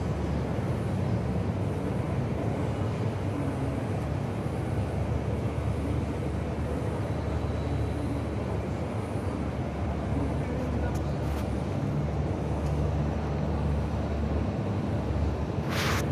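Steady low rumble of airport apron noise as a tug tows a widebody airliner onto its stand, with a short burst of hiss near the end.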